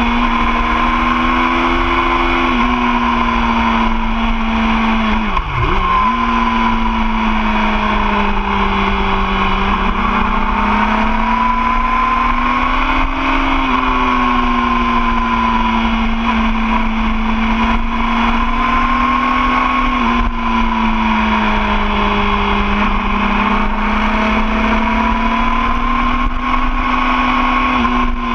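A 2013 Yamaha YZF-R6's 599 cc inline-four engine running at steady road speed, its pitch rising and easing gently through the curves. About five seconds in the note briefly drops sharply and comes straight back.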